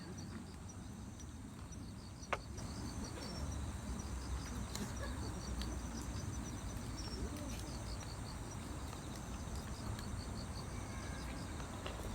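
Insects chirping in a steady, evenly pulsed rhythm, several chirps a second, with a single sharp click about two seconds in.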